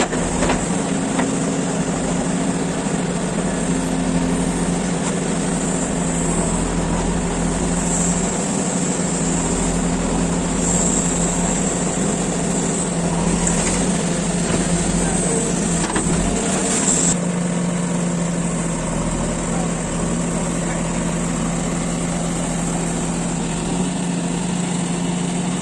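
JCB 3DX backhoe loader's diesel engine running steadily, with a high-pitched whine over it that stops about 17 seconds in.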